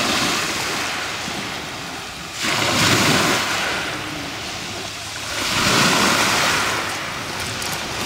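Black Sea surf breaking and washing up a pebble beach. Two waves surge in more loudly, about two and a half and five and a half seconds in, each rushing for about two seconds.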